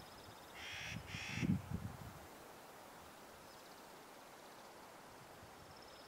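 Clark's nutcracker giving two harsh, grating caws in quick succession about a second in, each lasting about half a second. Low muffled thumps sound underneath the calls.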